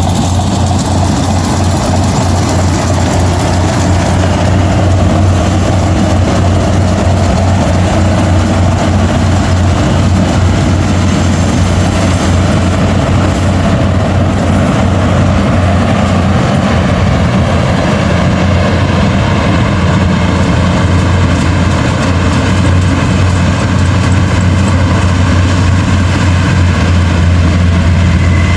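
Rice combine harvester running steadily while harvesting, its engine giving a strong, constant low hum under the clatter of the threshing machinery.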